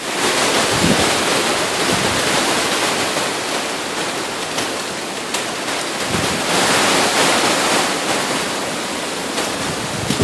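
Hurricane wind and heavy rain: a steady rushing noise, with a few gusts buffeting the microphone.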